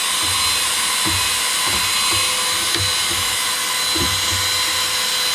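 Cleanmybricks mini vacuum cleaner for LEGO running at full speed: a steady high whine over an airy hiss, with a few faint low knocks as it works over the bricks.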